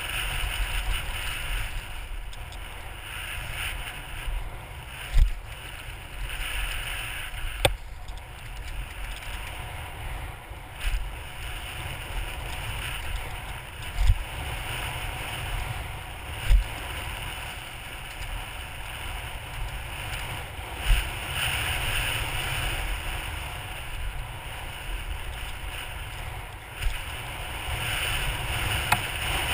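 Wind rushing over a helmet camera's microphone while a bike's tyres roll over a bumpy dirt trail, with about six sharp knocks spread through as the bike hits bumps.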